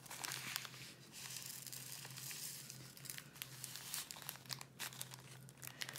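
Faint crinkling of a small plastic baggie of diamond-painting drills being handled, with light scattered ticks.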